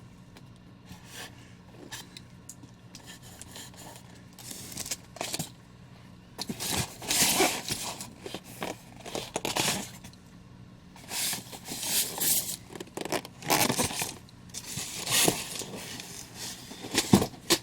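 Statue packaging being handled and pulled open by hand: irregular bursts of scraping, tearing and crinkling, with a sharp click near the end.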